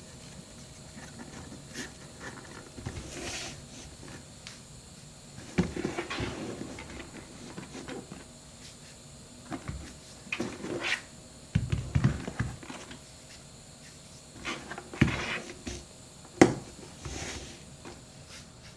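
Irregular handling sounds from leather work boots being moved and set down: scattered thuds and knocks with short rustles in between.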